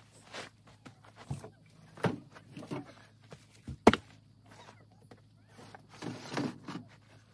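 Scattered knocks and thuds of camping gear and a cooler being shifted around in a pickup truck's bed, the sharpest knock a little under four seconds in, with a rustling shuffle around six seconds.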